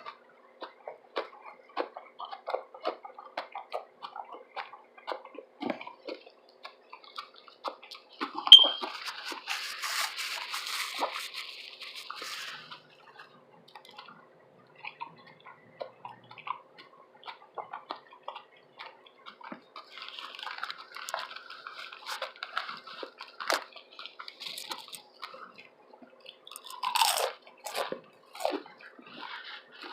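Close-miked chewing of a tuna sub sandwich: many small wet mouth clicks and smacks. A sharp, loud click comes about eight and a half seconds in, followed by a few seconds of denser noise, and a similar noisy stretch comes about twenty seconds in.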